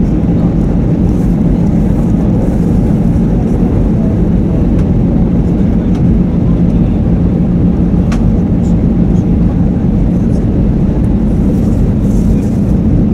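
Steady cabin noise inside an Airbus A320 in flight: the drone of engines and airflow with a low, even hum. There is one brief click about eight seconds in.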